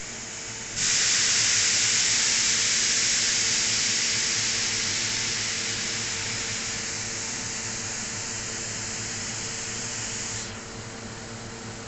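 Compressed-air assist gas hissing through the nozzle of a G-Weike LF-3015GAR fiber laser's cutting head. The hiss starts abruptly about a second in, grows slowly quieter, and cuts off shortly before the end. A steady machine hum runs underneath.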